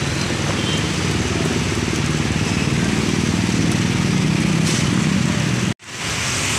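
Motorcycle engine running close by with a fast, even throb, over the steady hiss of heavy rain and vehicles splashing through floodwater. The sound cuts out for an instant near the end.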